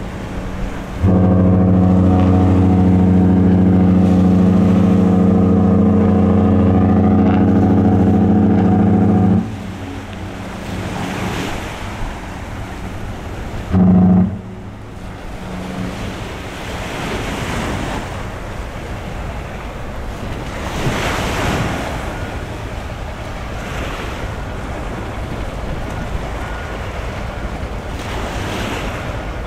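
Celebrity Apex cruise ship's deep horn sounding one long blast of about eight seconds, then one short blast a few seconds later, as she departs. Afterwards wind buffets the microphone over lapping waves.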